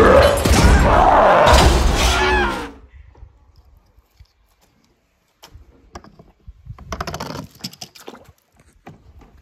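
Animated-film soundtrack with voices that cuts off abruptly about three seconds in. Then small handling clicks of a plastic toy monster truck, and around seven seconds in a short rattling clatter as the toy lands among plastic balls in a tub.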